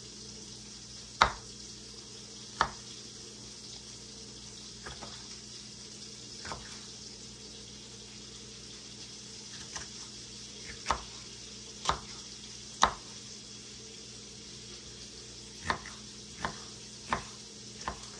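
Kitchen knife cutting a green bell pepper on a wooden cutting board: sharp, separate knocks of the blade hitting the board, spaced irregularly, coming quicker near the end. Under them a faint steady sizzle of onions sautéing in butter in a pan.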